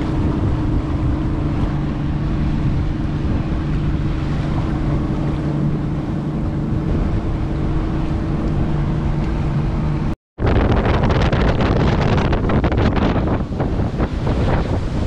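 Motorboat engine running steadily at speed, with wind and rushing water around it. About ten seconds in the sound cuts out for an instant and comes back as heavy wind buffeting the microphone and water splashing, with the engine's hum no longer standing out.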